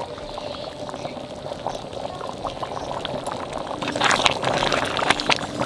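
A pan of ghugni (dried yellow pea curry) bubbling on the boil, with a spatula stirring through it about four seconds in, louder for about a second.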